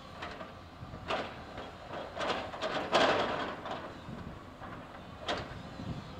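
Komatsu tracked excavator's bucket breaking and dragging concrete demolition debris: a run of crashes and scraping, loudest about three seconds in, and a single sharp knock near the end, over the steady running of the diesel engine.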